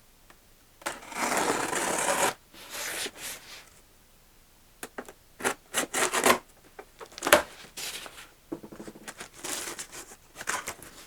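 A cardboard box being opened by hand: flaps and packaging rubbing and scraping, with a longer rustle about a second in and scattered taps and clicks later on.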